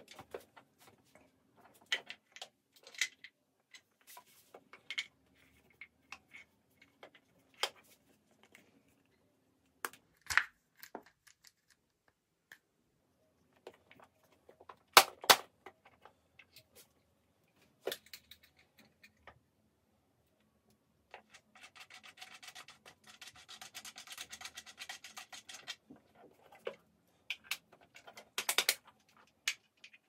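Wooden puzzle box being handled: scattered light clicks and knocks of wood on wood, with sharper knocks about ten and fifteen seconds in, and a few seconds of wood rubbing and sliding a little past the twenty-second mark.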